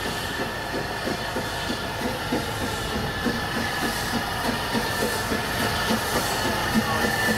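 Narrow-gauge steam locomotive moving slowly with its cylinder drain cocks open, steam hissing over a quick, regular beat of a few pulses a second.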